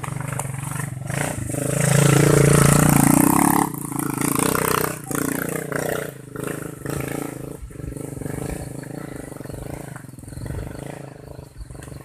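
A vehicle engine running steadily, rising to a much louder surge for under two seconds about two seconds in.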